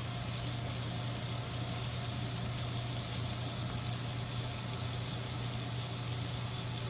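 Steak searing in butter in a cast-iron skillet, a steady sizzle, over the even hum of the stove's vent fan running on high.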